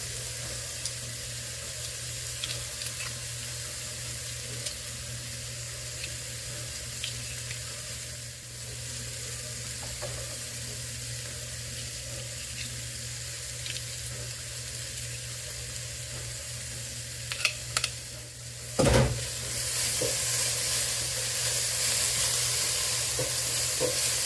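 Diced onions, green peppers, celery and garlic sizzling in hot oil in a pot over a high flame, with small ticks of stirring. Near the end come a few sharp knocks, and the sizzle turns louder.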